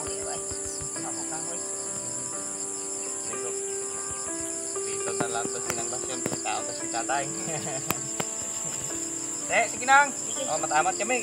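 Insects in dense vegetation: a steady high-pitched drone with a rapidly pulsing chirp beneath it. Soft melodic tones sit lower down, and a short voice-like burst comes near the end.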